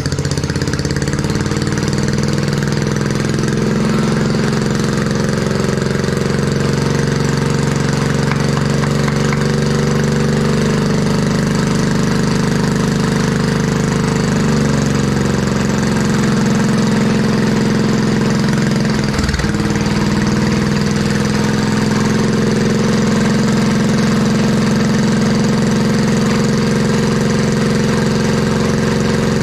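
Old garden tractor's single-cylinder Kohler engine running steadily at idle, its speed sagging briefly about halfway through and stumbling once a few seconds later as the carburetor is adjusted. It is running on a carburetor that doesn't seem to pull fuel up through its main jet, after sitting flooded for years.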